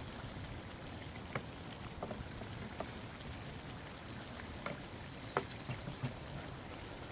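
Chicken karahi cooking in the pan: a steady sizzling hiss with scattered sharp pops and spits, about one a second.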